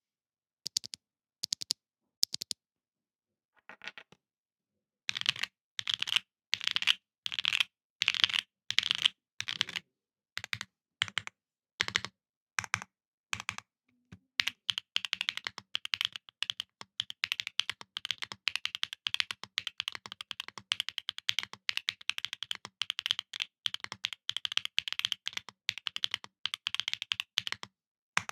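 Mechanical keyboard with Outemu Milk Cow linear switches on a polypropylene plate with plate and case foam, capped with KAP Disconnected Dark keycaps, being typed on. A few single keystrokes come first, then slower separate presses, then fast continuous typing from about halfway until just before the end.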